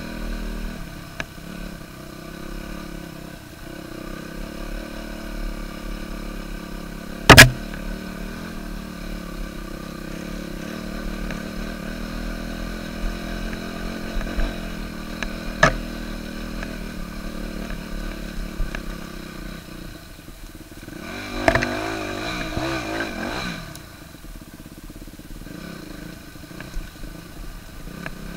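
Yamaha YZ250F's single-cylinder four-stroke engine running as the dirt bike is ridden along a trail, with the engine note rising and falling about three-quarters of the way through. A loud sharp knock sounds about seven seconds in, and smaller knocks come later.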